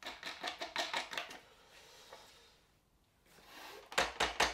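Hard plastic parts of a gun-cleaning vise clicking into a notched locking system, a quick run of about seven or eight clicks a second for the first second and a half. Near the end come a few louder knocks as the vise is handled.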